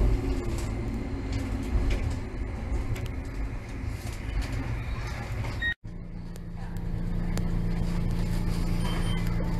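Kagoshima City streetcar rolling along the track with a low rumble as it draws into a stop. After a brief cut-out about six seconds in, a steady low hum as it stands at the platform.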